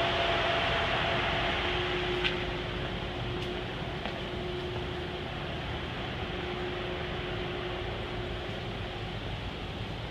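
Refrigeration evaporator fans of a zero-degree freezer warehouse running: a steady rush of air with a faint hum, and one small click about two seconds in.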